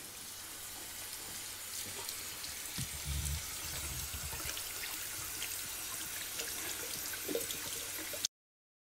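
Bathroom tap running into a washbasin while hands are rubbed and washed under the stream, with a low thump about three seconds in. The water sound cuts off suddenly near the end.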